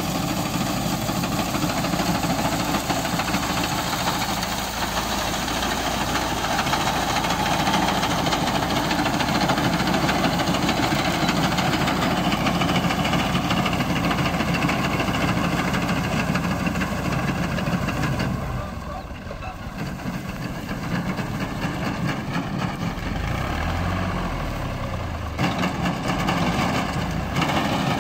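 Tractor diesel engine running steadily under load while its front-mounted reaper cuts standing wheat. The sound dips quieter for a couple of seconds about two-thirds of the way through.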